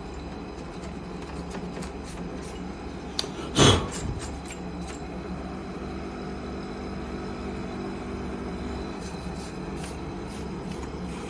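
Dehumidifier running with its compressor on: a steady hum, broken by a brief loud handling noise about three and a half seconds in.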